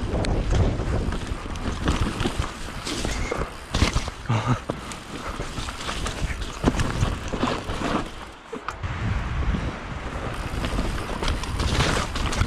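Mountain bike riding down a wet dirt trail: tyres rolling over the ground, wind buffeting the microphone, and the bike clattering and knocking over roots and bumps, with a brief lull about eight seconds in.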